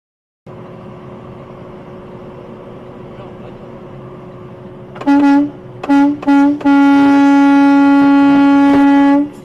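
Car horn sounding three short honks, then one long blast held for about two and a half seconds, a warning to a pedestrian in front of the car. Steady road noise runs underneath.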